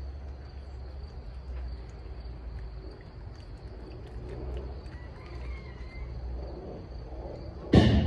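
Two men chugging beer from glass bottles: quiet swallowing over a low steady background rumble. A sudden loud sound comes near the end.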